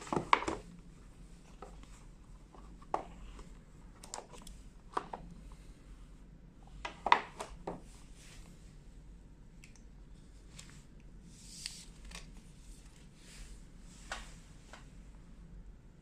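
Scattered clicks, taps and rustles of a smartphone box and its packaging being handled and opened by hand, with the sharpest clicks near the start and about seven seconds in.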